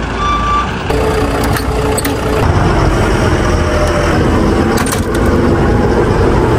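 Eicher truck's reversing alarm beeping over the diesel engine, stopping about a second in. After that the engine runs steadily, heard from inside the cab, with a few sharp clicks.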